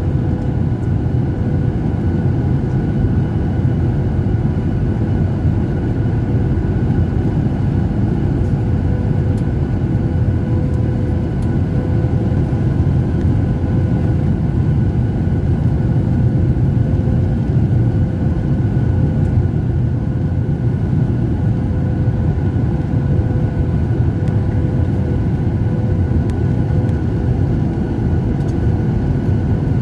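Steady cabin noise inside a Boeing 737 airliner during descent: the low rumble of airflow and the CFM56 turbofan engines, with a few faint steady whining tones above it.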